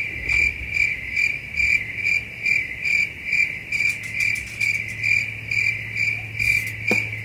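Cricket chirping in a steady, even rhythm, about two and a half chirps a second, over a low hum. It cuts in abruptly, like a dubbed-in sound effect.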